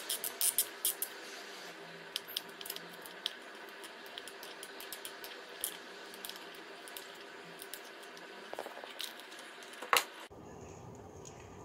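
Small plastic clicks and ticks from hands handling a servo and its wires in an RC truck's plastic chassis, thick in the first second and then scattered, with one sharper click about ten seconds in.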